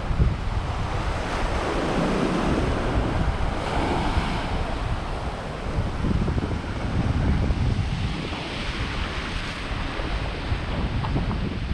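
Sea waves washing and breaking, the surf swelling and easing, with wind buffeting the microphone as a low rumble.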